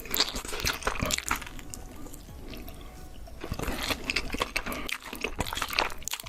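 Close-miked wet eating sounds: a run of sharp mouth smacks and clicks, sparser for a second or so in the middle.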